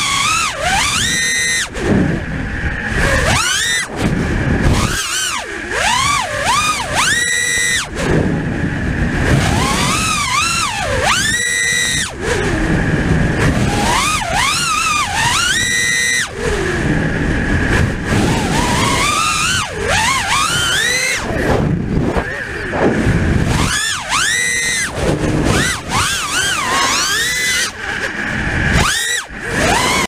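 Brushless motors and three-blade props of a 5S FPV racing quadcopter, T-motor F60s, heard from its onboard camera: a high whine that swoops up and down sharply with each throttle punch and chop, with short drops when the throttle is cut.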